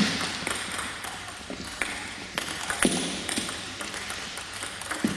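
Table tennis balls clicking off bats and tables: irregular sharp ticks through the hall, with a couple of duller knocks.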